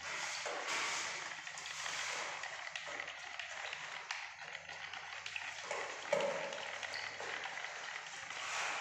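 A thin stick stirring PU wood finish in a plastic jug: continuous uneven scraping and swishing against the jug, with one sharper knock about six seconds in.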